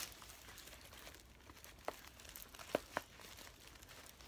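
Faint crinkling of tissue-paper stuffing being pulled out and a nylon bag being handled, with three short light clicks about two to three seconds in.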